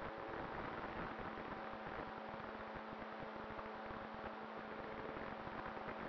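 Electric motor and propeller of a radio-controlled ASW28 motor glider running steadily in flight: a steady hum under a rush of airflow hiss, heard from a camera on the plane's wing.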